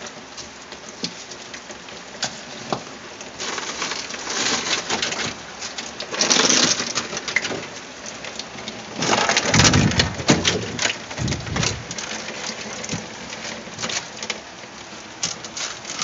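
Water pattering and splashing as melting frost and loose ice are broken off and pulled by hand from a one-door fridge's freezer compartment during defrosting, with small clicks and knocks of ice throughout. Louder splashing comes about six seconds in and again from about nine to twelve seconds.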